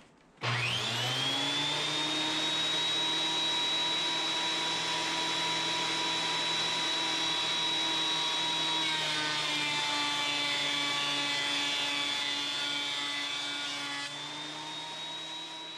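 Benchtop thickness planer switching on with a rising whine and running with a steady high whine. From about nine seconds in, the pitch sags and the sound turns rougher for several seconds as a thin board, laid on a carrier board, feeds through the cutter head. The pitch picks up again near the end as the load comes off.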